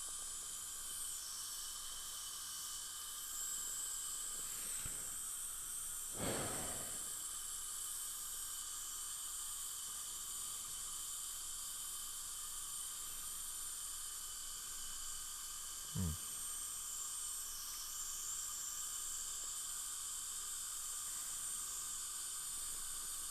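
Steady high hiss of dental operatory equipment running in the mouth, with a short rushing swell about six seconds in and a brief soft knock near sixteen seconds.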